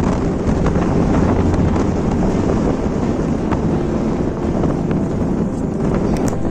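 Wind buffeting the microphone: a loud, steady low rush of wind noise.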